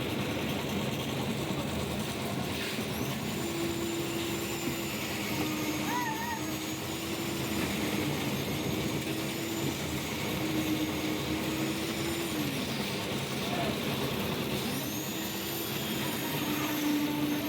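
Concrete lift mixer machine running steadily on site, with a whine that starts about three seconds in, stops near twelve seconds, and comes back near the end.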